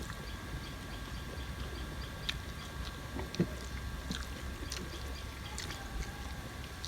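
Eating sounds from a meal: quiet chewing, with scattered small clicks and one sharper tick about three and a half seconds in, over a steady low hum.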